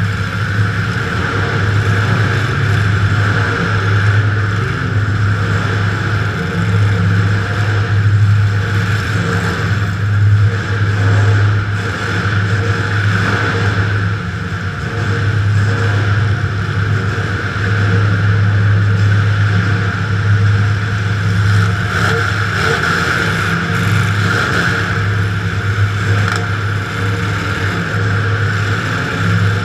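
Demolition derby car's engine running loud and steady, heard from inside the car, its pitch and loudness swelling and dipping a little as the throttle changes.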